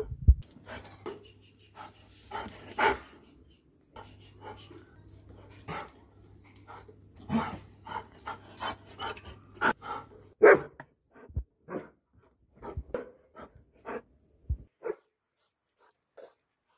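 Doberman barking repeatedly in short, irregularly spaced barks.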